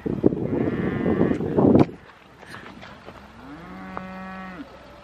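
Wind buffeting the microphone for about two seconds, cut off suddenly, followed by a single drawn-out moo about a second and a half long, steady in pitch.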